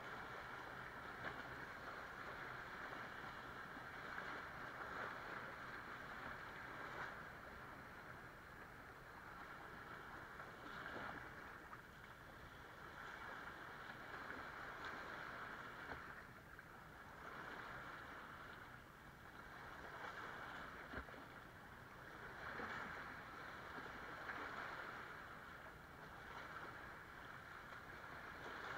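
Small sea waves washing in over sand and breaking against rocks, the wash swelling and fading every few seconds.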